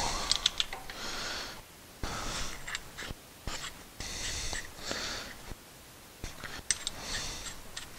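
Short puffs of breath through the nose, about one a second, with a few light metallic clicks as a caliper piston compressor tool is fitted onto a brake caliper.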